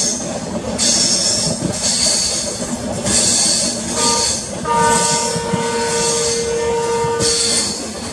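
Express train running at speed through a curve, heard from an open coach door: steady wheel-and-rail rumble with a hiss that swells and fades, and high squealing tones from the wheels on the curve that come and go, held longest in the second half.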